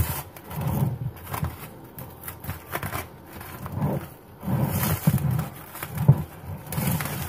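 Plastic cling film crinkling and crackling in irregular bursts as it is peeled by hand off a bowl.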